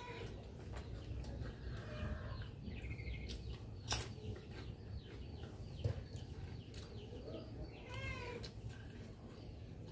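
Faint chirps and calls from birds in the background, scattered short falling notes with a louder run of calls about eight seconds in. Two sharp clicks sound at about four and six seconds.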